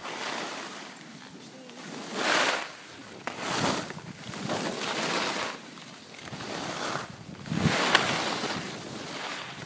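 Skis sliding and scraping over packed snow in a run of turns, each turn a swell of hissing scrape every one to two seconds, mixed with wind on the microphone. A short sharp click comes near the end.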